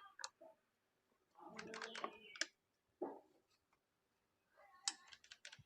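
Faint scattered clicks and light taps of a tool and small metal parts on a gasoline chainsaw, as a carburetor fitting is tightened, with a short cluster of clatter about two seconds in and another near the end.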